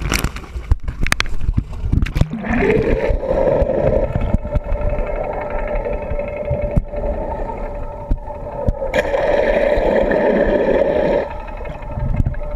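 Water rushing and bubbling around an underwater camera, over a steady hum from the boat's engine and propeller. There are sharp knocks and splashes in the first two seconds as the camera breaks the surface, a rising pitch in the hum soon after, and a louder rush of bubbles about nine seconds in.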